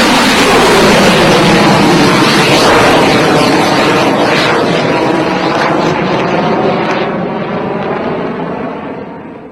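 Rocket engines firing at liftoff: a loud, steady rushing noise that slowly fades over the last few seconds.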